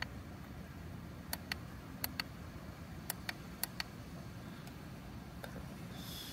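Sharp clicks from handling a cordless portable tire inflator, coming in quick pairs four times, with a short high beep near the end. The compressor motor is not running.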